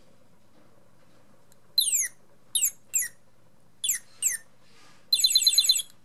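Motion-activated toy cardinal playing a recorded northern cardinal song through its small speaker: five down-slurred whistles starting about two seconds in, then a rapid trill of about a dozen short notes near the end.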